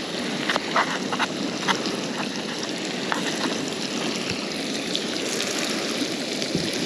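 Walleye fillets frying in oil in a pan, a steady sizzle, with a few light clicks of a utensil against a plastic bowl in the first couple of seconds.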